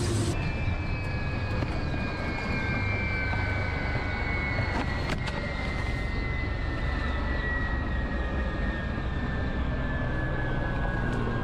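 Helicopter engine and rotor noise heard inside the cockpit: a steady low drone under a high turbine whine that slowly falls in pitch.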